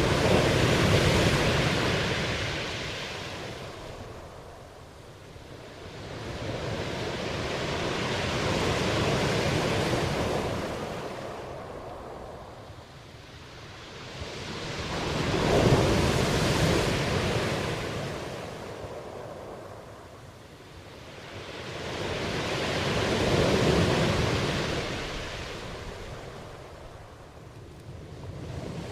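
Black Sea waves washing onto the shore in slow surges. Four waves swell and fade, about seven seconds apart.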